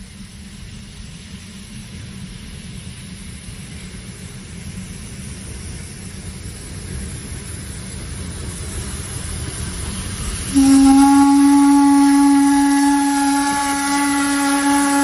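Steam locomotive approaching with a low rumble that grows steadily louder, then about ten and a half seconds in its steam whistle sounds one long, steady, loud blast that is still going at the end.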